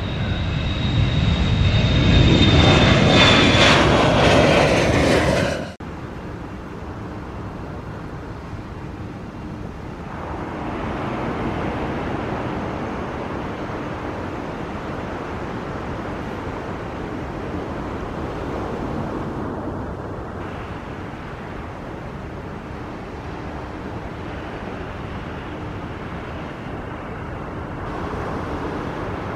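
Boeing 737 jet taking off at full thrust: loud engine noise with a high whine slowly falling in pitch, cut off abruptly about six seconds in. Then the steady, more distant engine noise of a twin-engine widebody airliner on its take-off roll, swelling slightly as it rotates near the end.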